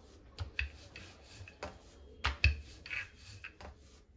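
Hands pressing and rubbing coiled lachha paratha dough flat on a plate, a soft rubbing broken by several sharp clicks and knocks, the loudest about two and a half seconds in.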